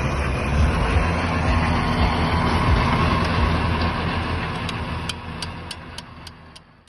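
Tractor engine running steadily under load while pulling a working super seeder through the field, with a low rumble and dense mechanical noise. The sound fades away near the end.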